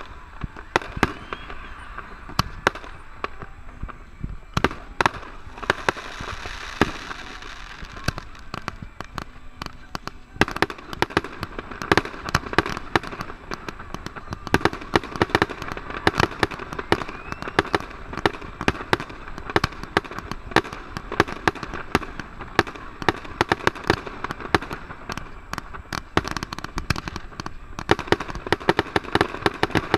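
Fireworks display: a rapid, continuous run of bangs over steady crackling, the bangs coming faster and closer together from about ten seconds in.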